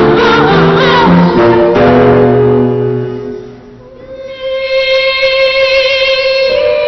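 Music: a children's choir singing in meow-like syllables over instrumental accompaniment, fading away about three seconds in. A long held note then enters and steps up in pitch near the end.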